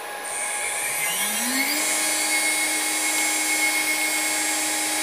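6040 CNC router spindle spinning up from rest, its whine climbing in pitch for about a second, then running steadily at high speed, about 18,600 RPM against a command of 20,000.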